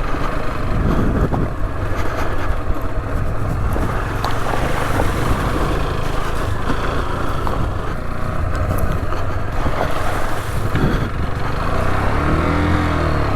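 Rieju Adventura 125's single-cylinder four-stroke engine running as the bike is ridden over a rough green lane, mixed with wind noise and crackle on the microphone. Near the end the engine revs up and drops back.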